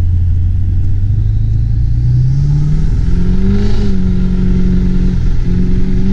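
Duramax V8 turbodiesel in an H2 Hummer accelerating, heard from inside the cab. Its note climbs in pitch for about three seconds, then holds steady, with a brief dip a little after five seconds.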